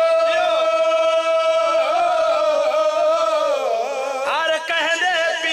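A man chanting a devotional qasida in one long, wavering held note that dips and fades near the four-second mark, then starts a new sung phrase.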